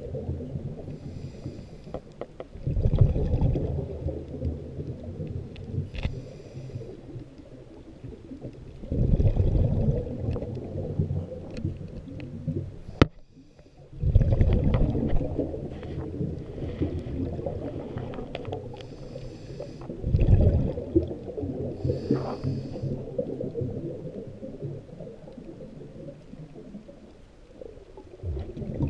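Underwater sound heard through a camera housing: low rumbling surges of moving water every five or six seconds, with brief faint hissing between them.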